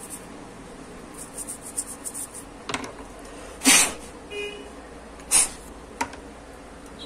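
A toothbrush scrubbing a small eMMC chip, with light scratching and clicks as tools are handled on the bench. Two short, louder hissing rasps come about three and a half and five and a half seconds in, and a faint short beep between them.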